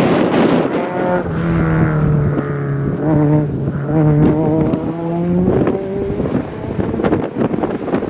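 Rally car's engine at high revs coming through a corner on a dirt stage, a steady note that steps in pitch a few times, then irregular crackles and clatter as it goes by. Wind rumbles on the microphone at the start.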